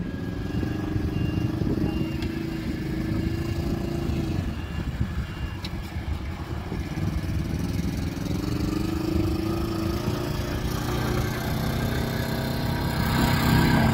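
Engines of Polaris side-by-side utility vehicles running as they drive across the sand. The engine note rises and falls and grows louder near the end.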